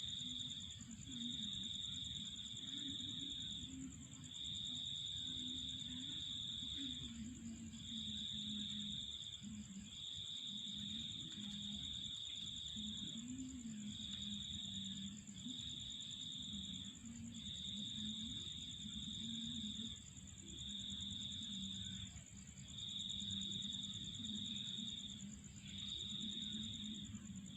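Insects, crickets among them, trilling: one high trill runs on without a break while a lower trill comes in repeated bursts of about a second each. Faint wavering low tones sound underneath.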